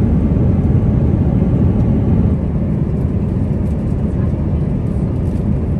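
Steady low cabin noise of an Airbus A350 airliner in flight: the even rumble of engines and airflow heard from an economy-class seat.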